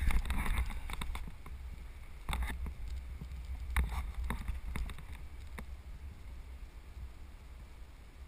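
Wind rumbling on a helmet camera's microphone, with a few sharp clicks and knocks in the first half that then die away.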